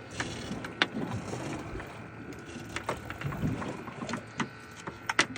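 Scattered knocks and clicks of gear being handled on a fishing boat, over a steady hiss of wind and water.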